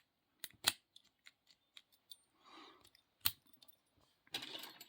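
Lock picks clicking and scraping in the keyway of a 30 mm Master 130 pin-tumbler padlock as the pins are worked: a few sparse, sharp clicks, the loudest about three seconds in, and a scratchy scraping near the end.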